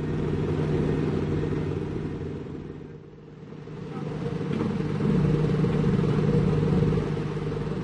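Engine of heavy construction machinery running steadily, swelling louder twice: first about a second in, then louder again for a few seconds past the middle.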